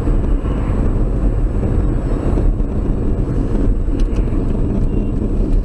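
Steady low rumble of a car's engine and tyres heard from inside the cabin while driving, with a couple of faint clicks about four seconds in.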